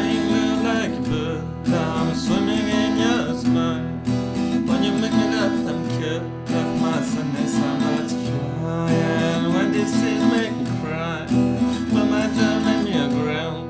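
Music: a song led by strummed acoustic guitar, with no sung words.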